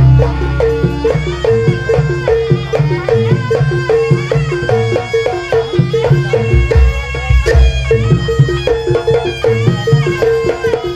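Live Javanese traditional dance-troupe music: drums under a rapidly repeated pitched note, with a wavering melody line on top.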